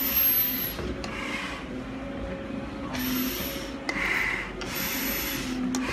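Hard, fast breathing through a firefighter's full-face respirator mask: rasping breaths roughly once a second, some with a thin high hiss from the mask, over a steady low hum. This is heavy exertion near the top of a 110-floor stair climb.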